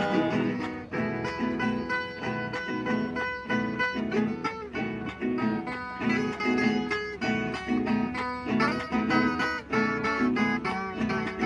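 Instrumental break of a moda de viola song: viola caipira and acoustic guitar playing a quick plucked melody over a regular rhythm, with no singing.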